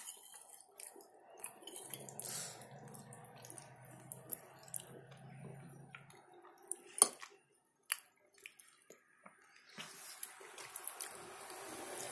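Close-up eating sounds: a person chewing a meat-stuffed bell pepper with sauce, with occasional clinks of a metal fork against a plate, the sharpest about seven seconds in.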